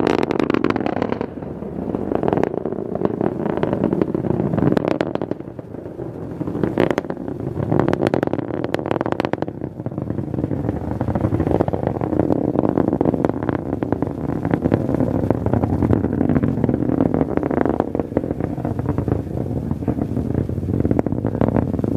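Atlas V 551 rocket, its five solid rocket motors burning, heard from miles away as a loud steady rumble full of rapid crackling.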